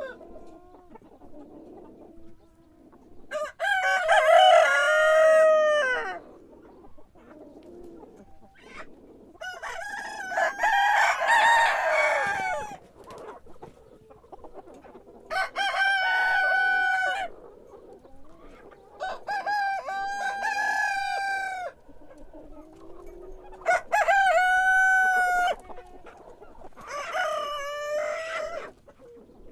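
Roosters crowing in turn, six long crows of two to three seconds each, with two overlapping in the middle. Hens cluck quietly between the crows.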